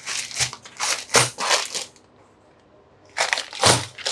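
Clear plastic packets full of coins crinkling and rustling as they are handled, in short bursts, with a pause of about a second past the middle before more crinkling near the end.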